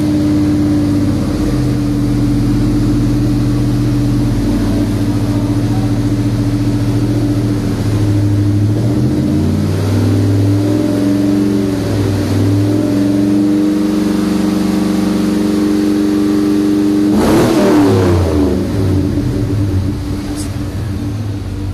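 Chevy Silverado SS's 6.0-litre V8 idling through a straight-pipe exhaust with high-flow race catalytic converters. A couple of light throttle blips come about halfway through, and near the end one quick hard rev drops straight back to idle.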